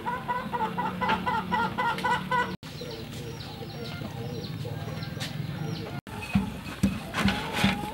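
Chickens clucking in quick runs of short calls, then small birds chirping over a low steady hum. A series of sharp knocks comes near the end.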